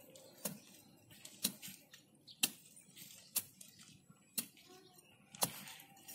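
Steel digging bar (linggis) stabbed into the soil, six sharp strikes about a second apart as the ground is loosened around a sapling's roots.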